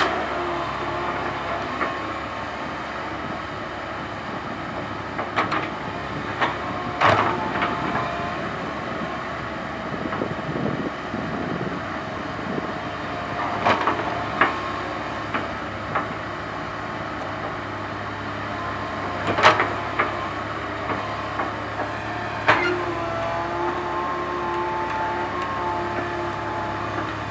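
Komatsu PC130 hydraulic excavator's diesel engine running steadily under working load, with a hydraulic whine that shifts in pitch as the controls are worked. Several sharp metallic clanks break in now and then.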